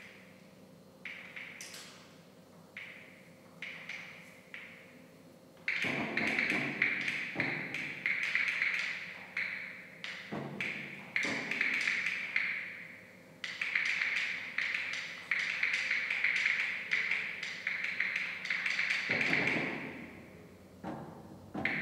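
Improvised percussion on struck objects, amplified through live electronics, each tap ringing on a bright tone. A few spaced taps give way about six seconds in to a fast, dense run of strikes, which thins back to single taps near the end.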